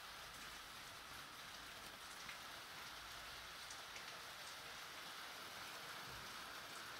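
Light rain falling steadily: a faint, even hiss with a few soft drop ticks.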